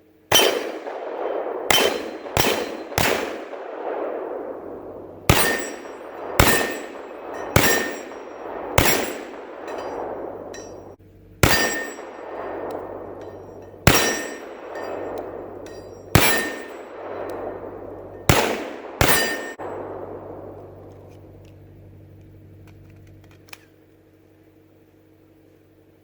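About thirteen shots from a .300 Blackout AR pistol, fired in irregular groups over some twenty seconds, each followed by a long rolling echo. Steel targets ring faintly on hits.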